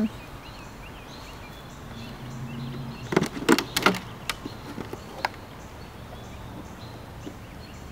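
Hard plastic clacks and knocks from handling a Traxxas Spartan RC boat's hull and hatch cover: a quick cluster of sharp clacks about three seconds in, then two single knocks over the next second or two.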